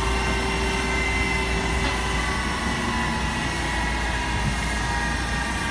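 Steady jet-aircraft noise on an airport apron: a continuous turbine whine with several high steady tones over a low rumble.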